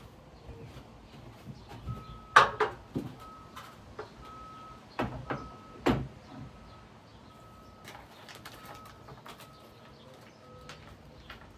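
Knocks and clicks of a ceiling fan blade and its screws being handled and fitted onto the blade iron: a cluster of sharp knocks about two seconds in, a few more around five to six seconds. A faint high tone repeats in short, evenly spaced dashes through most of it.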